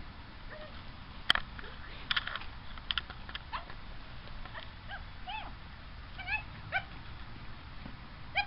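Swedish Vallhund giving short, high yips and whines, a handful of brief rising-and-falling calls, with a few sharp knocks in the first three seconds.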